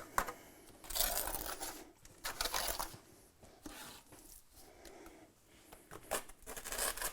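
Mason's trowel scraping and working wet mortar on a brick chimney corner: a few short rasping strokes near the start, a quieter stretch, then more strokes near the end.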